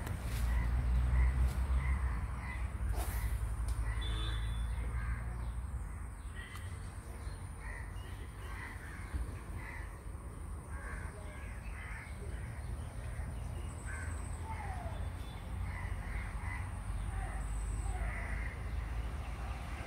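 Crows cawing repeatedly in short calls over a steady low rumble.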